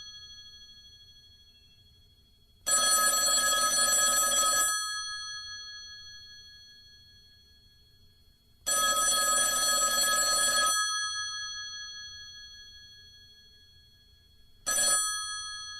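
Telephone bell ringing: two rings of about two seconds each, about six seconds apart, each ringing out slowly after the clapper stops. Near the end the bell gives one short, brief ring.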